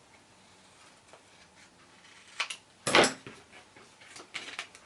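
Card stock being cut and handled: quiet at first, then a click and a short, sharp rustling scrape about three seconds in, the loudest sound, followed by a few light clicks and taps.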